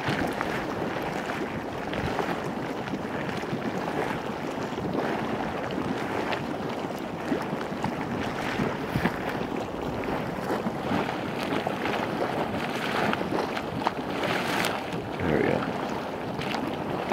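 Geothermal mud pots venting: steam and gas hiss and gurgle up through hot, watery mud in a steady churning noise, dotted with small pops and spatters. It grows louder in short spurts about nine seconds in and again near the end.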